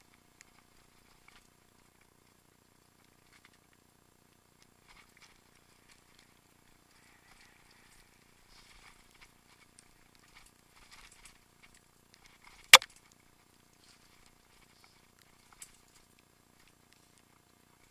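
Mountain bike rolling down a rocky trail: faint, scattered clicks and rattles, with one sharp, loud knock about thirteen seconds in.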